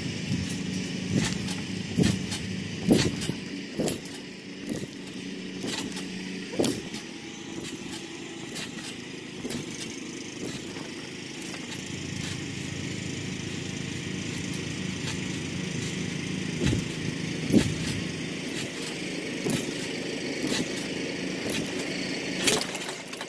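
Bare feet landing on a trampoline mat, heard through the mat as irregular thuds, over a steady hum of an engine-like drone underneath.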